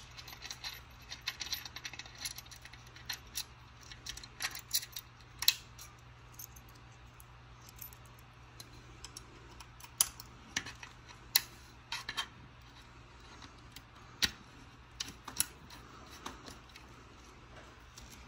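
Scattered small metallic clicks and taps of screws, a screwdriver and a metal headlight mount being handled as the light's side screws are taken out and it is fitted.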